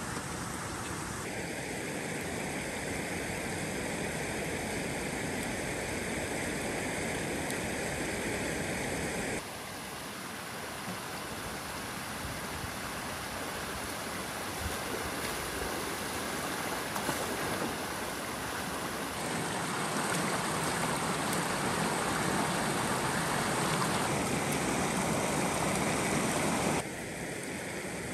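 Steady rushing water noise with no distinct events, its tone shifting abruptly three or four times.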